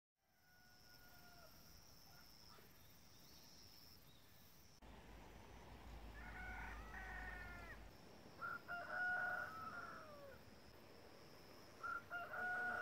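Roosters crowing: one faint crow near the start, then three crows in a row, each about two seconds long and falling away at the end.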